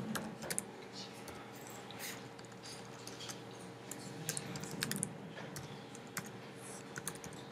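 Faint, irregular keystrokes on a computer keyboard, over a faint steady hum.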